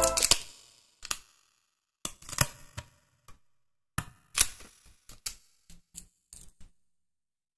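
Scattered small clicks and crackles of a die-cut 3D puzzle piece being pushed out of its printed sheet and handled between the fingers.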